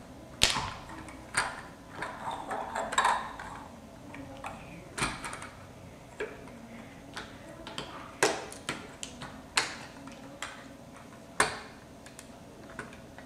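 Irregular clicks and knocks of a plastic LEGO tank being handled on a wooden tabletop while rubber treads are fitted around its wheels.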